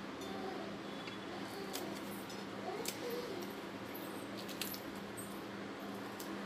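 A small knife slicing a green chilli by hand over a bowl: a few faint, sharp clicks from the blade, over a steady low hum.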